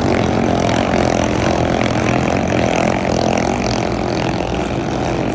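Thai-style drag boat engine running loud and steady, its pitch wavering slightly.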